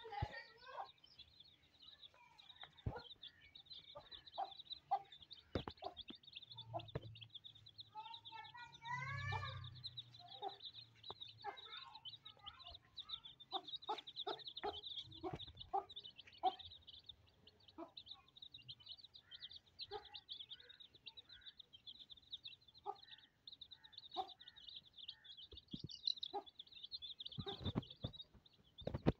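A brood of Aseel chicks peeping high and rapidly without pause, with a hen's short clucks breaking in now and then.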